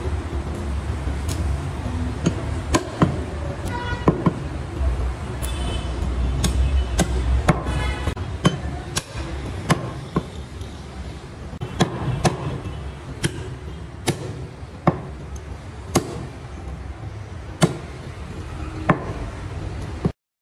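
Heavy butcher's cleaver chopping goat meat on a round wooden chopping block: sharp, separate chops roughly once a second, over a low steady rumble.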